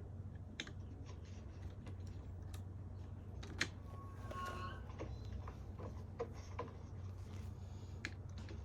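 Irregular light plastic clicks and taps of LEGO pieces being handled and pressed, typing-like, over a steady low hum; one click about three and a half seconds in is louder than the rest.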